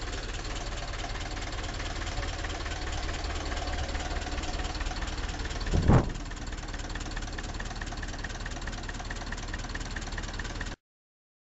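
Ursus C-360 tractor's three-cylinder diesel engine running steadily, its injectors freshly regenerated and injection timing reset, which the owner says makes it run better. A brief loud thump about six seconds in, and the sound cuts off abruptly near the end.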